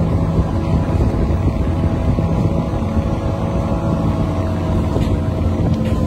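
Crane engine running steadily while the crane holds and lowers a frame of concrete railway sleepers.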